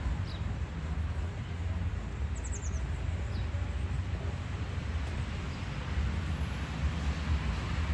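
Outdoor ambience of distant road traffic, a steady low rumble, with a few short bird chirps in the first half, one of them a quick run of four descending notes.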